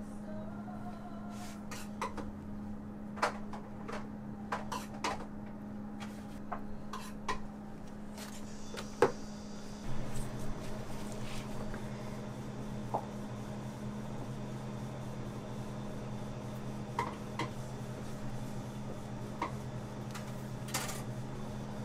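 Kitchen room tone: a steady low hum with scattered light clicks and knocks of utensils and dishes, the loudest knock just before a second, lower hum joins about halfway through.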